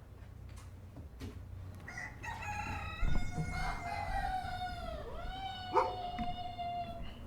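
A rooster crowing once: a long, drawn-out cock-a-doodle-doo starting about two seconds in and lasting some five seconds, dipping briefly in pitch partway through.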